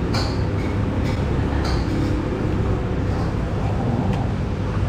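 Steady low rumble of restaurant room noise, with faint voices in the background.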